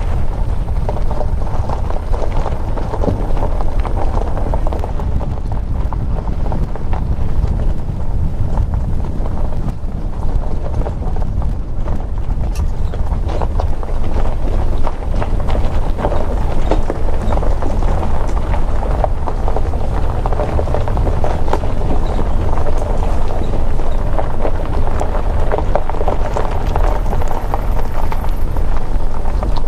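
Car driving on a gravel road: steady rumble of tyres over loose gravel, with a stream of small stone clicks and crunches. A deep wind rumble on the microphone runs under it.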